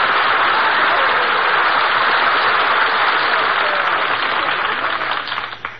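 Studio audience applauding steadily, heard on an old 1947 radio broadcast recording; the applause dies away near the end.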